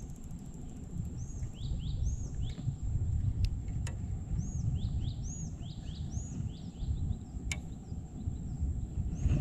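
Birds calling in repeated bursts of three or four short, arching chirps over a steady low rumble, with a few sharp clicks in between.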